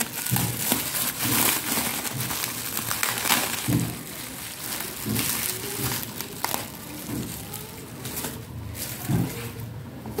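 Plastic bubble wrap and newspaper packaging crinkling as they are handled and pulled apart by hand. The crackling is louder in the first few seconds and quieter after that.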